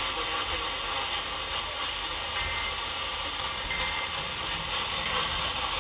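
Steady hiss of radio static with no program audio, with two faint short beeps partway through.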